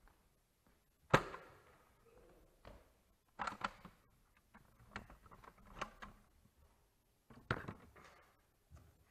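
Knocks and clatters from a Nerf Delta Trooper blaster being handled with a camera mounted on it: a sharp knock about a second in, a few clacks in the middle, and another sharp knock about seven and a half seconds in.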